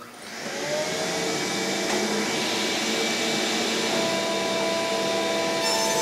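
Table saw switched on: the motor winds up over about a second, then runs at steady speed with a steady whine, ready to rip pine boards.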